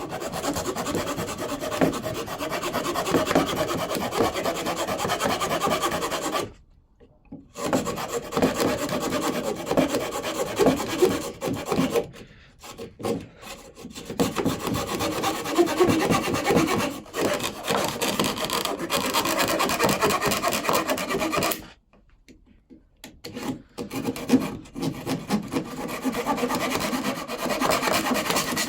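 Small saw blade of a Leatherman Rebar multitool cutting through wood in repeated back-and-forth strokes, with two short pauses, about seven seconds in and about twenty-two seconds in.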